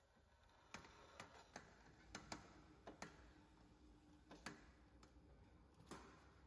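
Faint footsteps of shoes on a bare concrete floor: light, sharp taps, irregular, about two a second.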